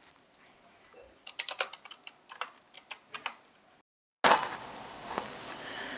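Typing on a computer keyboard: a quick, light run of about a dozen keystrokes. After a brief dropout, a steady hiss of background noise follows.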